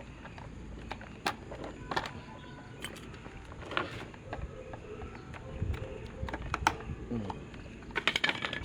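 Scattered sharp clicks and knocks of tools and metal and plastic fan parts being handled while an electric fan motor is taken apart, with a quick run of clicks near the end.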